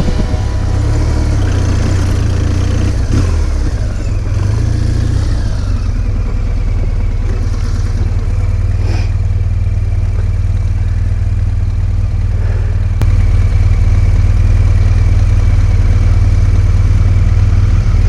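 Adventure motorcycle engine running as the bike is ridden along, a steady low-pitched sound with some shifts in pitch over the first few seconds; it gets a little louder about two-thirds of the way through.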